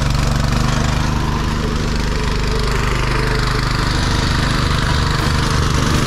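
Brand-new Lumag plate compactor's small petrol engine running steadily just after being pull-started, a loud, even, rapid pulsing.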